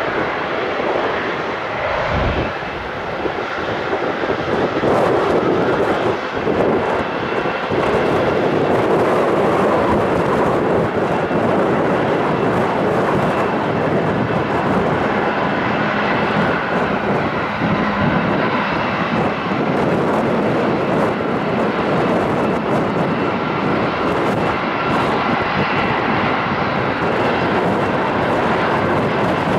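The GE90 jet engines of a Boeing 777-300ER running at takeoff power on departure: a loud, steady jet noise. A brief low thump comes about two seconds in.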